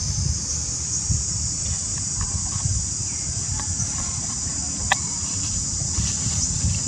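Insects buzzing in a steady high-pitched drone over a low rumble, with one sharp click about five seconds in.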